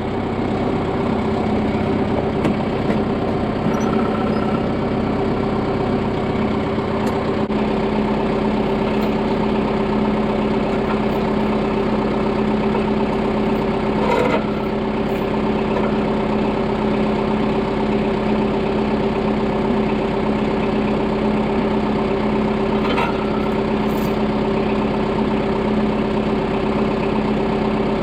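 Tractor engine idling steadily, with a few faint clicks over it.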